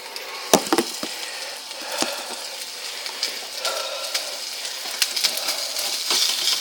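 Hamburger patty and onions sizzling in a frying pan, with a few sharp knocks about half a second in and another around two seconds.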